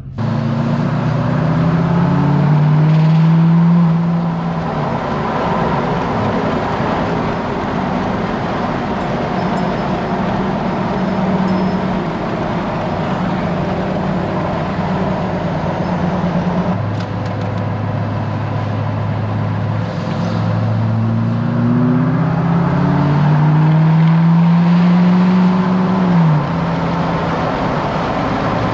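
L5P Duramax 6.6-litre V8 turbo-diesel pulling the pickup along at highway speed, heard from inside the cab together with road noise. The engine pitch rises as it accelerates early on and again later, then drops suddenly a few seconds before the end, as at an upshift.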